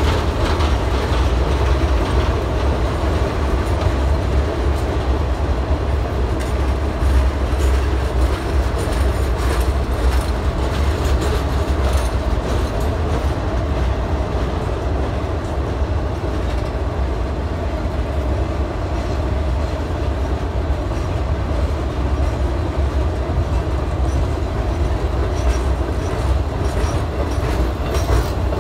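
Freight train cars rolling past at steady speed: a continuous low rumble with frequent wheel clicks over the rail joints.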